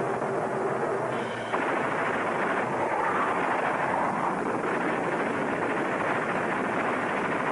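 Rocket engine roar: a loud, steady noise that shifts abruptly about a second and a half in.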